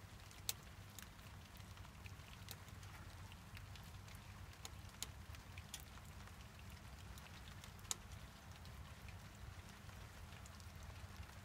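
Faint light rain: scattered drip ticks over a low steady rumble, with a freshly lit rocket stove burning damp wood quietly beneath.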